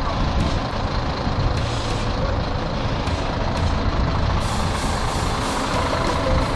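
Heavy truck engine running steadily, with a brighter hiss building up from a little past halfway.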